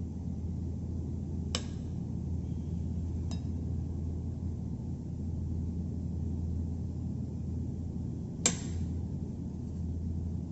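Three sharp clinks of kitchen utensils against cookware, the loudest about eight seconds in, over a steady low hum.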